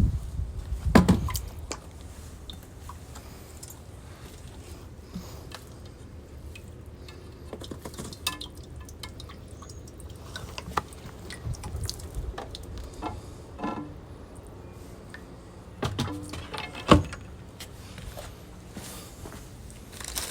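Water dripping and splashing while a pool filter is washed, with scattered knocks and clatter from handling the parts. There is a loud knock about a second in and another late on.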